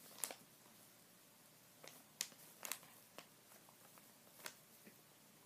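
A few faint, scattered clicks and taps as a plastic squeeze bottle of white glue is handled and its nozzle dabbed onto the corners of a popsicle-stick frame.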